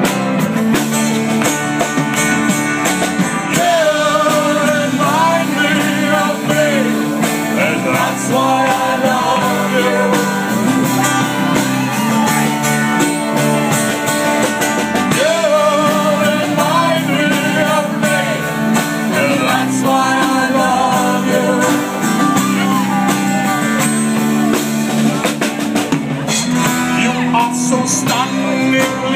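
Live band playing a rock-and-roll song: strummed acoustic guitar and drums under a lead line that slides and wavers in pitch.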